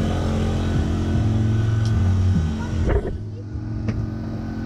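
Motor vehicle engine running with a steady low drone, which stops abruptly about three seconds in and leaves a quieter background.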